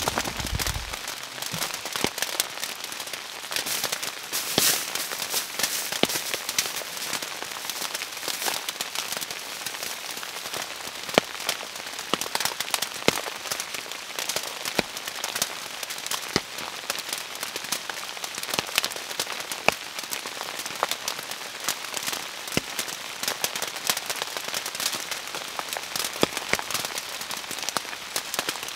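Steady rain falling, a hiss peppered with irregular sharp ticks and pops, and a brief low rumble right at the start.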